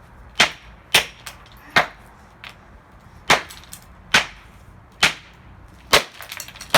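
Hard blows smashing a plastic alarm clock radio: about eight sharp cracks, roughly one a second, each with a brief ring, and a scatter of small clicks from loose pieces just before the last blow.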